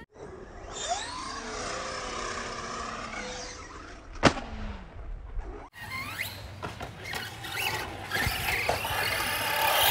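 Electric motor of a radio-controlled car whining as it revs up and down, the pitch rising and falling, with a sharp click about four seconds in. The sound breaks off once near the middle at an edit.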